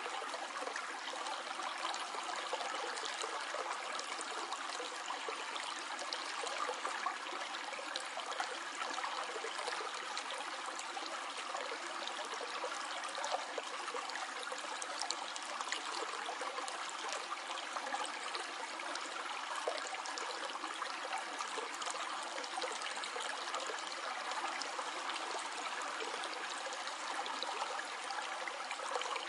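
Stream water flowing and trickling over stones, a steady even rush with fine splashing detail.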